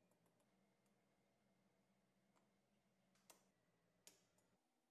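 Near silence with a faint low hum and two small sharp clicks, about three and four seconds in, from a nail, washer, bottle cap and pliers being handled. The hum stops shortly before the end.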